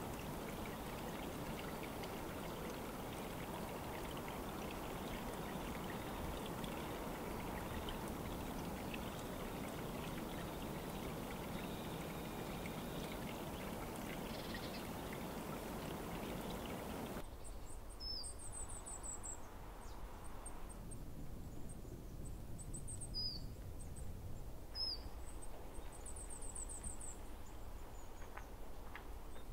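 Stream water running with a steady rush for about the first seventeen seconds, then a sudden change to quieter woods where small birds chirp with short, high notes and a few quick downward-sweeping calls.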